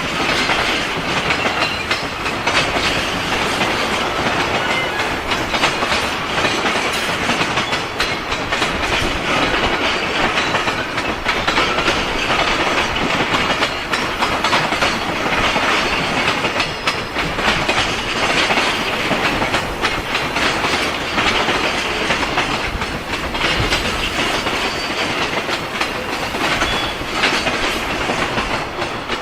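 A freight train's wagons rolling past, their wheels clattering steadily over the rail joints.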